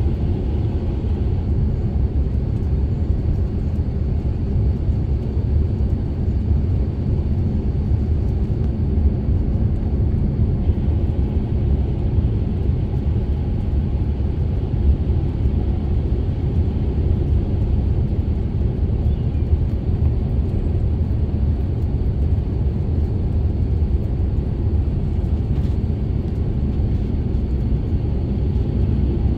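Steady low rumble of an Airbus A350-900 heard from inside the passenger cabin, with no distinct events.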